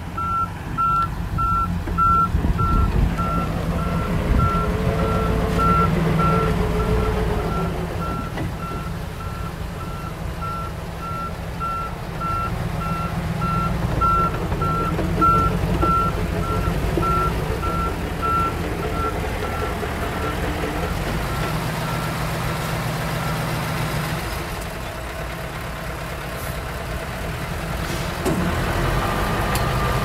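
Heavy diesel earthmoving machinery running, most likely the bulldozer, with a reversing alarm beeping about twice a second. The beeping fades out about two-thirds of the way through.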